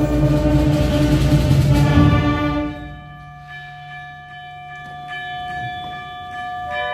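School concert band playing: the full band is loud with low drums for about the first two and a half seconds, then drops suddenly to soft held woodwind notes. A struck chime rings in near the end.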